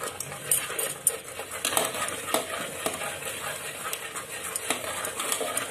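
A spoon stirring and scraping spice masala as it fries in oil in a pressure cooker, with a steady frying hiss and scattered clicks of the spoon against the pot. The masala is being fried until its raw taste cooks off.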